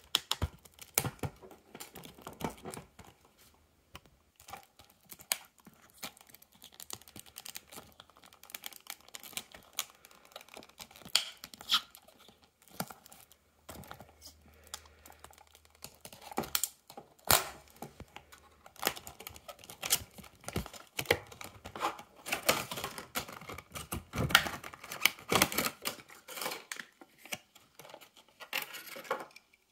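Stiff clear plastic blister packaging being pried off its cardboard backing and handled: irregular crackles, clicks and snaps, busiest a few seconds before the end.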